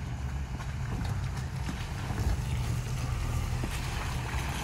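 Off-road truck engine running at crawling speed, a steady low rumble.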